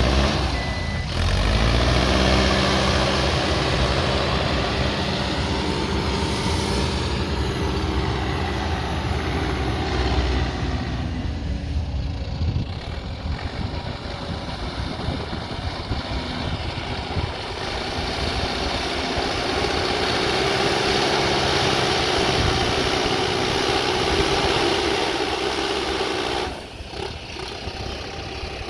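Mahindra backhoe loader's diesel engine running continuously while working, its level swelling and easing, dropping somewhat near the end.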